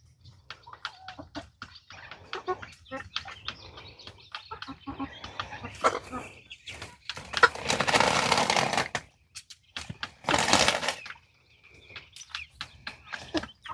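Backyard chickens clucking and stirring, with many small clicks and scratches. About halfway through come two louder rustling bursts, each a second or two long.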